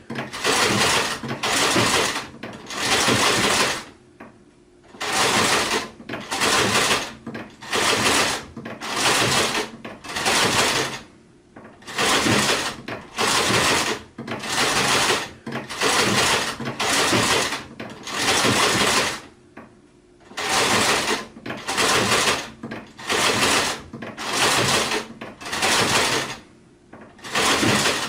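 Sewing machine stitching in short, repeated runs of well under a second each, stopping and starting again. A slightly longer pause comes about every seven or eight seconds.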